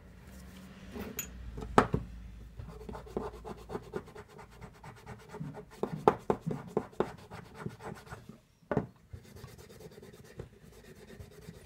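Hands and a rag rubbing and scraping at small metal bicycle hub parts on a wooden workbench: irregular scratchy strokes, with a few sharp knocks, the loudest about two seconds in and another near nine seconds.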